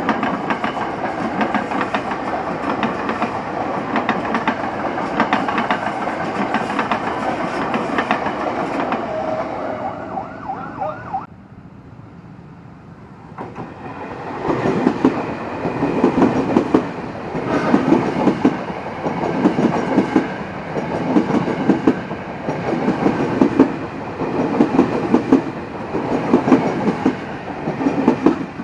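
Tokyo Metro 6000 series electric commuter trains passing close by. The first runs past as a steady rush of wheel and motor noise with a steady whine in it. After a short quieter gap a second train clatters past, its wheels clacking over the rail joints in a regular beat about every one and a half seconds.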